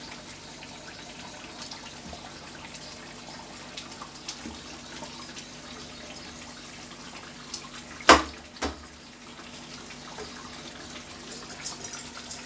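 Egg curry simmering in a kadai on a gas burner: a steady bubbling hiss with faint small pops. Two sharp knocks come about eight seconds in, and a run of small clicks near the end.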